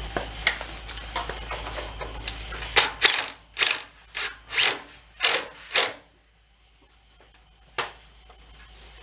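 Ryobi cordless driver run in about six short trigger bursts, starting about three seconds in, snugging the upper control arm bolts tight. A single sharp click near the end.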